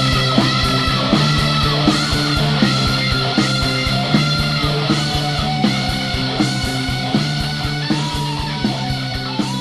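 Instrumental heavy rock music: electric guitar over a steady drum beat, gradually getting quieter.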